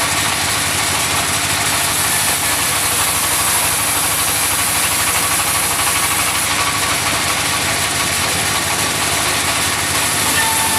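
Sawmill machinery running steadily and loudly, with an even mechanical drone and hiss that does not change.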